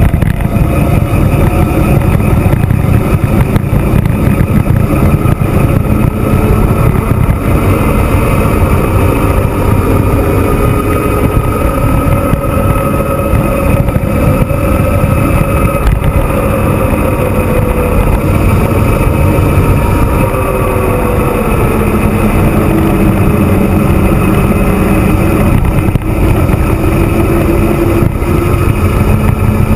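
Steady rush and rumble of wind on the camera microphone during a fast downhill bicycle ride, with a wavering hum running through it.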